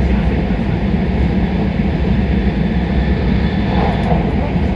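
Steady running noise of a Tohoku Shinkansen train at speed, heard from inside the passenger cabin: a constant low rumble with a rush of wheel and air noise.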